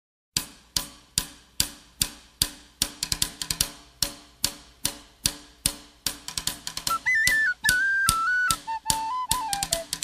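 Instrumental opening of an Irish folk-punk song: a drum beat of about two and a half hits a second, busier from about three seconds in, with a high whistle melody coming in about seven seconds in.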